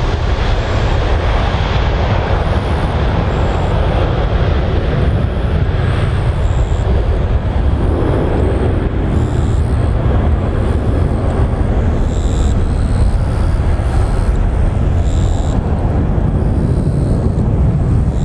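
The twin jet engines of a Boeing 767-300 airliner in a full-power climb-out, a steady deep rumble that thins in its higher part over the second half as the aircraft draws away.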